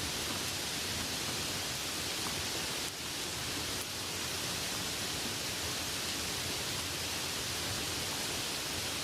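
Light rain falling in a steady hiss.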